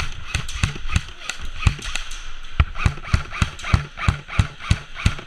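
Running footsteps: heavy, evenly paced footfalls about three a second, each a dull thump with a crisp scuff, from a player moving fast across the ground.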